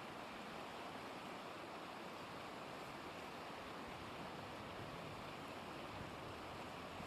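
Faint, steady rushing of a river flowing freely, with no other sound standing out.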